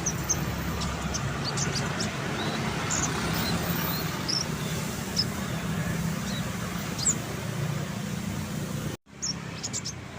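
Konin songbird giving scattered short, sharp high chirps and whistles over a steady low rumble like traffic. About nine seconds in the sound drops out for a moment, then comes back with a quick cluster of chirps.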